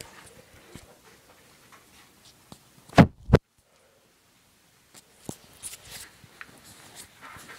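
Handling noise from a phone being moved about, with scattered small knocks and rustles. About three seconds in come two loud, close knocks a third of a second apart, followed by a gap of dead silence lasting about a second and a half.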